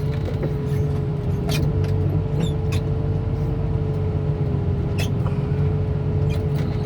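Heavy equipment engine running steadily with a low drone and a constant whine above it, with a few sharp clicks.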